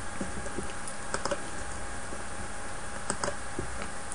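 A few faint, scattered clicks from a computer keyboard and mouse, some in quick pairs, over a steady low background hum.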